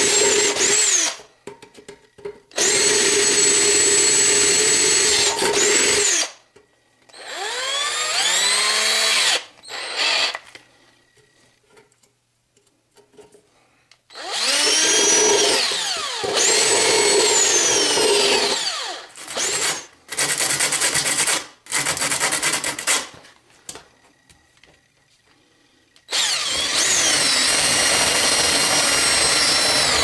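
Hand-held power drill with a step drill bit boring and deburring holes in the thin steel wall of a tin can, in a series of short runs with pauses between them. The motor whine rises as the trigger is squeezed and falls as it is let go. One run near the middle is a rapid, even clatter.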